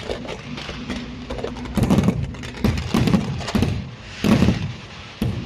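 Fireworks display: shells going off in a string of low booms, the loudest a little after four seconds in, amid many sharp crackling pops.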